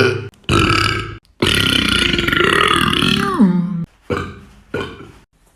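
A man belching over and over: a few short burps, then one long drawn-out belch of about two and a half seconds whose pitch drops sharply near its end, then two shorter burps.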